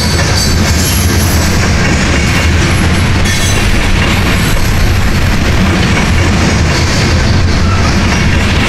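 Freight train of covered grain hopper cars rolling past close by: a loud, steady rumble with the clatter of steel wheels on the rails.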